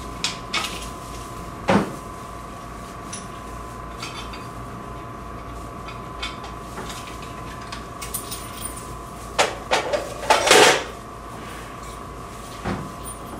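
Hard clicks and metallic clatter as coin tubes are fitted back into a vending machine's coin mechanism: a few separate knocks near the start, the loudest burst of rattling about ten seconds in, and one more knock near the end. A steady hum runs underneath.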